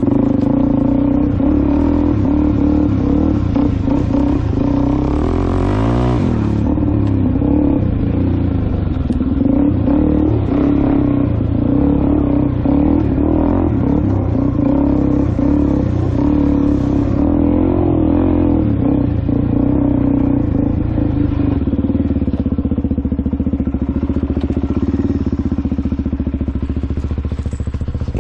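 Motor vehicle engine running steadily at a nearly constant pitch.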